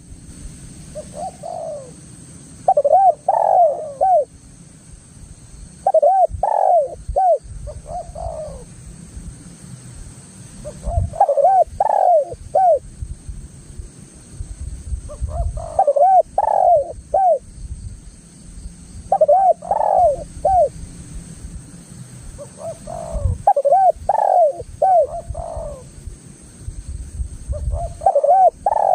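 Spotted dove (tekukur) cooing repeatedly: phrases of several quick, arched coos, repeated about every three to four seconds, about eight times.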